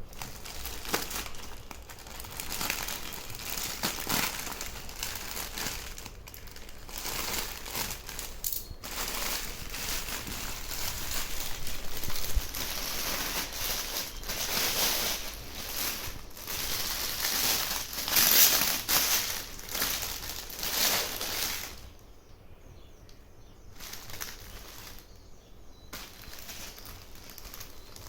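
Packaging crinkling and rustling as it is handled and opened, in irregular bursts; much fainter for the last several seconds.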